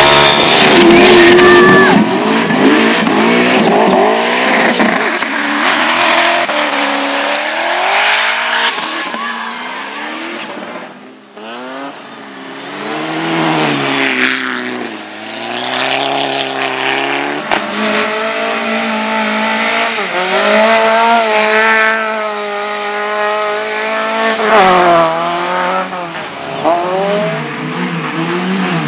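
Racing engines revving hard, their pitch climbing and falling again and again as they accelerate and back off. There is a brief lull about eleven seconds in.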